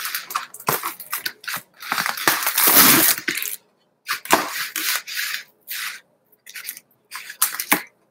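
Packaging crinkling and tearing as it is opened by hand: a run of short irregular scrapes, with one longer tear about two seconds in.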